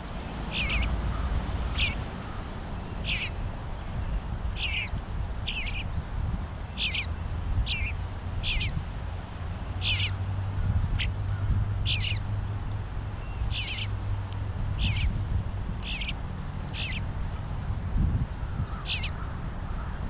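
Eastern bluebird fledglings calling at the feeder: short calls repeating about once every second or so, over a low steady rumble.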